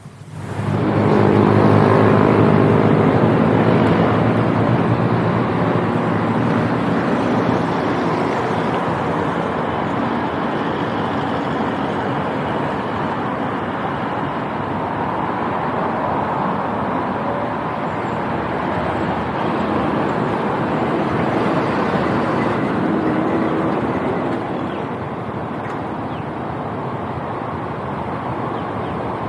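Motorcycle pulling away about half a second in, its engine note rising as it accelerates, then riding along with steady engine and wind noise that eases a little near the end.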